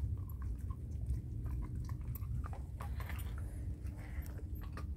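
A dog chewing and crunching food close to the microphone, with short irregular crunches and clicks.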